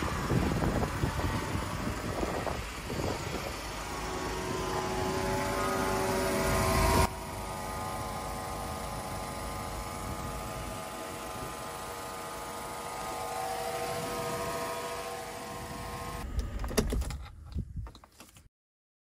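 Mercedes W124 E320's 3.2-litre straight-six engine running at idle, with a steady whine over the engine note; the sound changes abruptly about seven seconds in. A few sharp clicks near the end before it cuts off.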